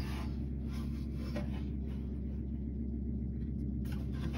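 Steady low hum, with a faint light knock about a second and a half in.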